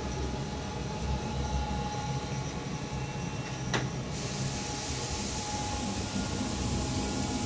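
Radonett A1UV radon aerator running: a steady hum with a faint high tone and an even hiss from its water stirring and venting airflow. A single click comes a little before four seconds in, and right after it the hiss grows louder and brighter.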